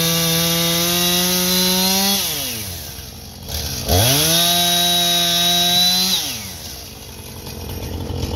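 Chainsaw cutting through a fallen log at full throttle. The revs drop away about two seconds in, rise sharply again about four seconds in as the saw goes back into the cut, then fall off toward idle about six seconds in.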